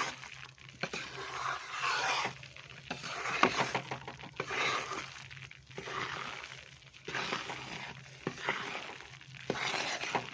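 Spatula scraping and stirring gram flour (besan) roasting in a kadhai, in repeated strokes about once a second.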